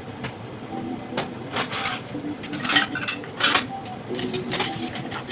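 Bar-work handling noise: a glass and bar tools knocked and scraped on a steel counter, several short knocks and scrapes with the loudest two near the middle, over a steady room hum.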